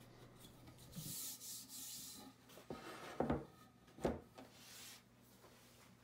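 A wooden handrail handled on a perforated workbench top: a soft scraping hiss as it is rubbed and slid by hand about a second in, then three light wooden knocks as the rail is turned over.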